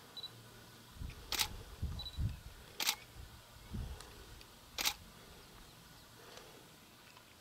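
Camera shutter clicks: three sharp clicks, spaced about a second and a half and then two seconds apart. There are low muffled thumps between the first two clicks.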